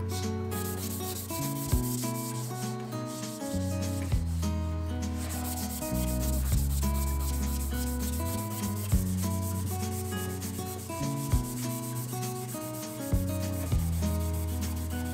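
Repeated hand-rubbing strokes on milk-painted wooden panels, over background music with a bass line.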